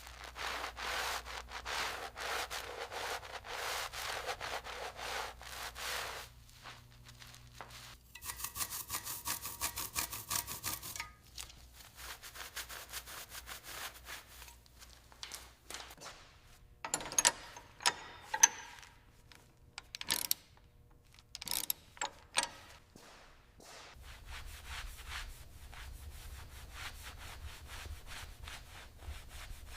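Hand rubbing or sanding on a surface, with quick repeated strokes. About halfway through comes a short buzzing stretch, then a few sharp clicks or knocks, and a low hum with faint scratching near the end.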